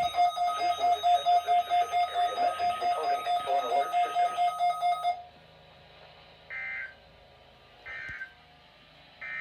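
Midland WR120 weather radio sounding its alert alarm, a rapidly pulsing steady tone, for the required weekly test. It activates late, after the test message has already played. The alarm cuts off suddenly about five seconds in, followed by three short beeps about a second and a half apart.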